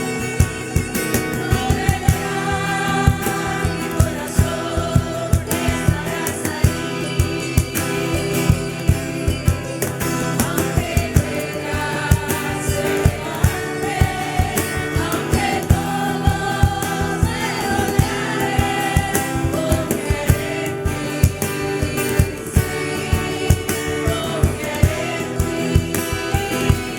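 Worship music: a group singing a gospel song over a band with a steady drum beat.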